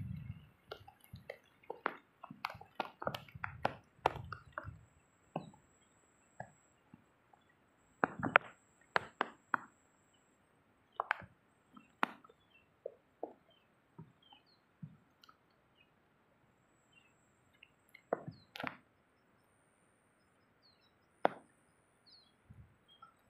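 Irregular short taps and knocks, some in quick clusters and others on their own, with faint high chirps between them.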